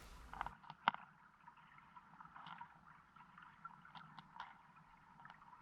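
Faint underwater ambience picked up by a submerged camera: a soft water hiss with scattered small clicks and ticks, and one sharper click about a second in.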